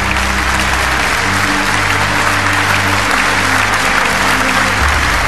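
Audience applauding, with steady sustained music chords underneath.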